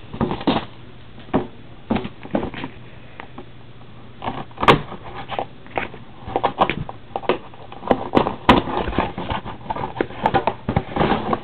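Plastic shrink-wrap and the cardboard of a hockey card hobby box being handled and opened by hand: crinkling, scraping and irregular sharp clicks, the sharpest about halfway through.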